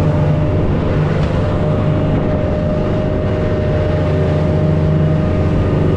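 Motorboat engine running steadily with an even, unchanging hum.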